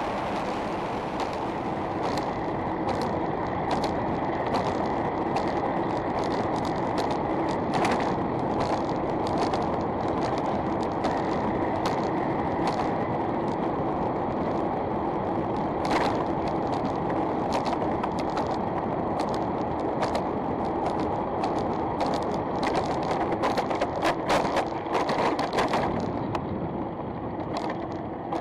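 Electric-assist bicycle towing a cycle trailer while riding: steady rolling and wind noise with frequent rattling clicks, a louder burst of rattles shortly before it quietens near the end.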